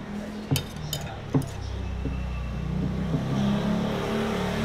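Three light clinks of chopsticks and spoon against porcelain bowls, then the low, steady rumble of a motor vehicle's engine that builds from about a second and a half in.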